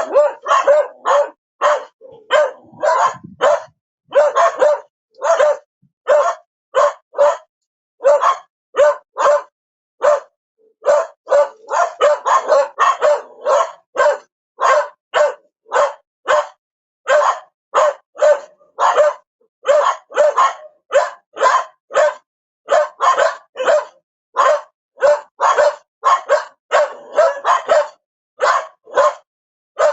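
A dog barking over and over in rapid runs of short barks, about two to three a second, broken by brief pauses.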